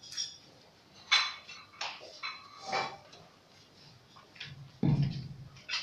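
Handling noise from a phone held close to its microphone: scattered clicks, rubs and light knocks, with a louder dull thump about five seconds in.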